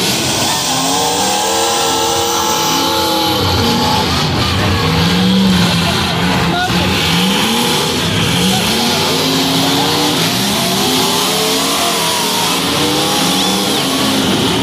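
Several demolition derby cars' engines revving up and down at once as they drive and ram each other on the dirt arena, with a short knock near the middle.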